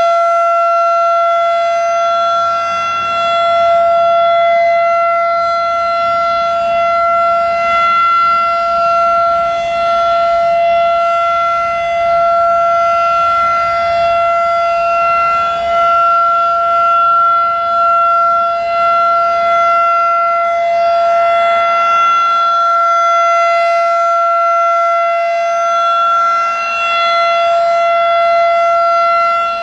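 Federal Signal 2001-DC outdoor warning siren sounding a steady alert tone: one held pitch that does not rise or fall, with slight swells and dips in loudness.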